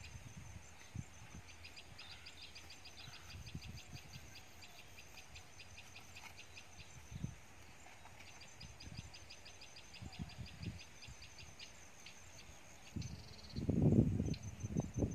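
Outdoor ambience with a fast, even series of short high chirps coming in runs of a few seconds, over soft low rumbles. Near the end come louder low thumps and rumbling from the camera being handled as the view moves.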